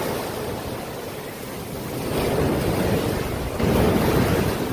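Sea waves washing in on the shore, a rushing wash that swells about two seconds in and again more loudly near the end.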